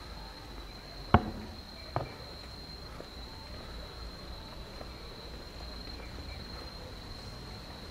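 A steady, high-pitched insect trill, with two sharp knocks a little over a second in and at about two seconds, the first louder.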